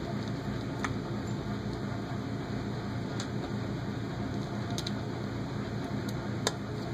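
Light metallic clicks and ticks of a hex driver and small screws against an aluminium motor-mount plate as the screws are driven in, about five in all, the sharpest near the end, over a steady low hum.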